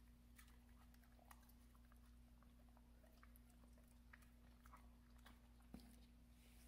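Faint, scattered wet mouth clicks and smacks from an Alaskan Malamute chewing and licking its lips, with one slightly louder knock near the end, over a steady low electrical hum.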